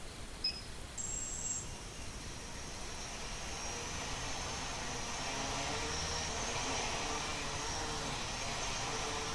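A short electronic beep, then about a second in the quadcopter's brushless motors spin up and run with a high whine and airy hiss that slowly grows louder.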